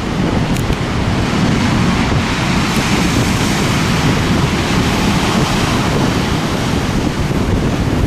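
Heavy storm surf breaking and churning onto a shingle beach, a loud steady roar of rough sea, with wind buffeting the microphone.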